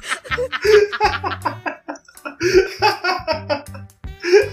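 A man laughing hard in runs of quick bursts, over background music with a steady bass line.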